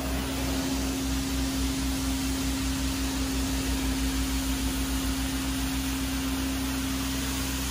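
Carpet steam-cleaning extractor running: a steady rushing hiss of suction through the wand, over a constant hum and a low throb that quickens and then slows.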